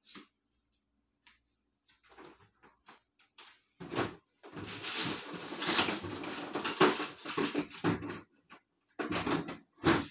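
Kitchen handling noise: a knock about four seconds in, then a few seconds of dense rustling and clattering, and two more knocks near the end.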